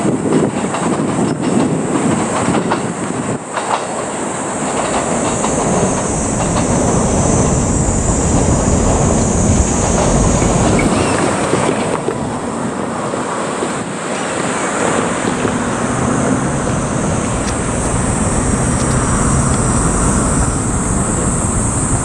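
A JR Kyushu 787-series electric limited-express train running past. Its wheels clatter over rail joints and points, with sharp clicks in the first few seconds and a faint high wheel squeal at times.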